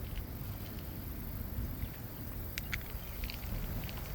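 Wind buffeting the microphone: a steady low rumble, with two small clicks a little past halfway.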